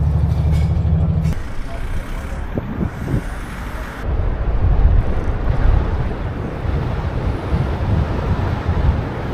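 Road vehicle noise: a deep engine rumble that stops abruptly about a second in, then a steady din of traffic and tyres that swells in the middle.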